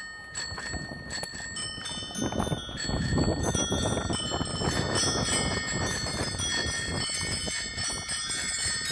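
Background music with chiming, bell-like notes coming in one after another and growing louder about three seconds in. Under it, the rough rumble of a mountain bike riding fast down a dirt trail, with wind on the microphone.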